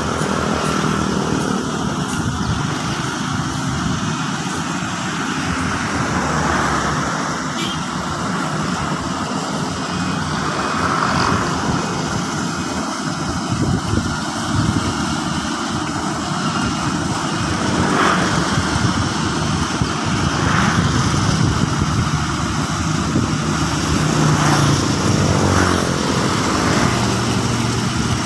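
Rice-harvesting machine's engine running steadily at work.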